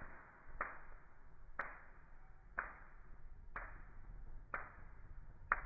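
Six sharp ticks, evenly spaced about a second apart, each trailing off in a brief hiss.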